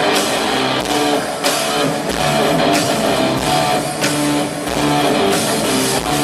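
Live rock band playing an instrumental break between sung lines, with electric guitar over a steady drum beat.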